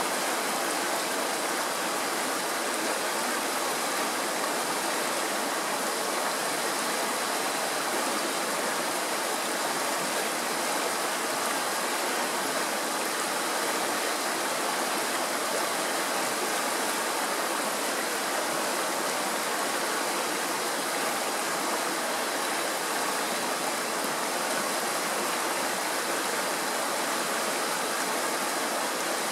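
Shallow mountain stream rushing and splashing over rocks: a steady, even rush of water with no breaks.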